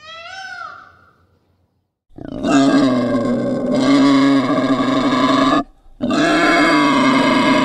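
A peacock's brief arching call, then two long, loud grunting calls from a wild boar, each lasting over three seconds with a short break between them.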